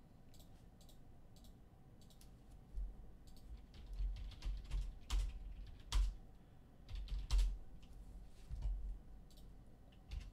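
Typing on a computer keyboard: irregular keystrokes and clicks, with a run of louder key presses and low thuds from about three to nine seconds in.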